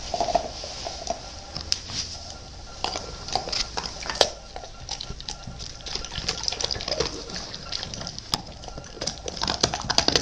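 German shepherd mouthing and chewing a dog treat on the floor, making irregular clicks and smacks with its mouth.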